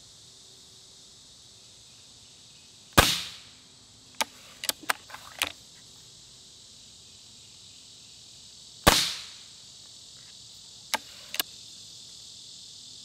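Two shots from a Gamo Wildcat Whisper .177 air rifle, about six seconds apart, each a sharp report with a short decaying tail, fired at pellet speeds of around 1,250 feet per second. A few lighter clicks come between and after the shots.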